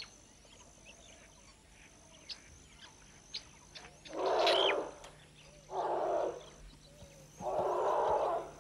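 Asian elephants making three short, rough, noisy calls, each about a second long and spaced a couple of seconds apart; the first has a brief squeaky rise in it. Faint, repeated high chirps run underneath.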